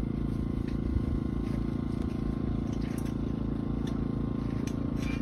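An engine running steadily at a constant speed, a low even hum with a few faint ticks over it.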